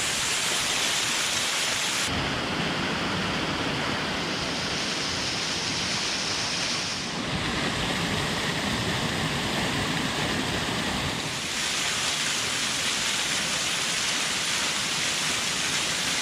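Rain-fed waterfall pouring off a canyon cliffside, a steady loud rush of falling and splashing water whose sound shifts abruptly about two seconds in and again about two-thirds of the way through.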